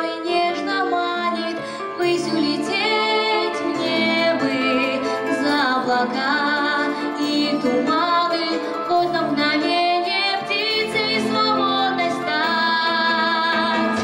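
A girl singing a song solo into a handheld microphone over instrumental accompaniment, holding some notes with a wavering vibrato.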